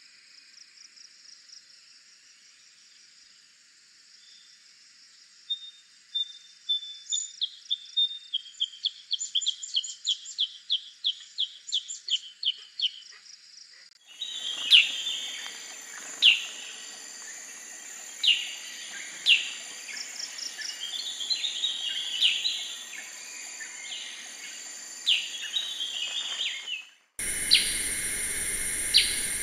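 Black-headed bulbul calls: a quickening run of short, sharp rising notes, then, after an abrupt cut to a louder recording, single loud falling call notes every second or two over a steady high background hiss.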